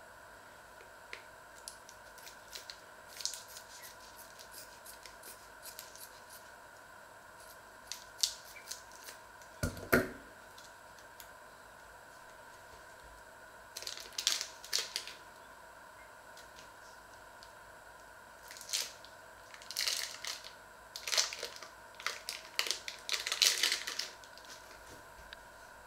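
Plastic food packaging crinkling and tearing as a fish fillet is pulled out of it, in scattered bursts that are busiest near the end, with a single knock about ten seconds in.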